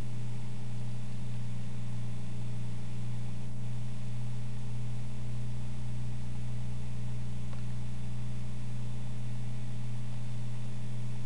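Steady low electrical hum with a faint hiss underneath, unchanging throughout.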